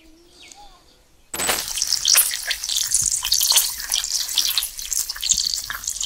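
Slices of sucuk sizzling and spattering in oil in a steel pot over a split-log stove, cutting in suddenly about a second in. Before that there are only a few faint bird chirps.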